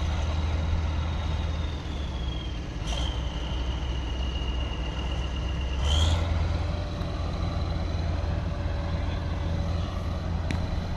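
Kirovets K-700A tractor's diesel engine running while it pulls a trailer, a steady low drone with a high whine over it that drops in pitch a few seconds in. About six seconds in the engine briefly gets louder.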